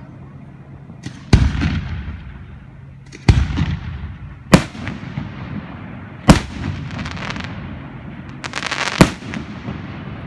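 Aerial firework shells bursting in the sky: five sharp bangs spread over about eight seconds, each trailing off into a low rumbling echo, with a quick run of crackling just before the last bang.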